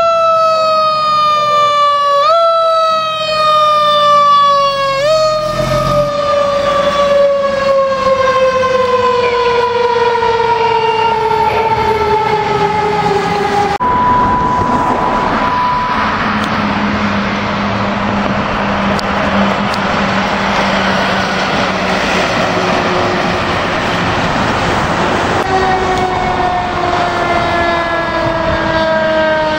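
Fire engine siren winding slowly down in pitch with two brief rises, the long coast-down of a mechanical Q-type siren. After a cut comes a stretch of rushing traffic and engine noise with a short steady high tone and a steady low hum. Near the end a falling siren wail returns.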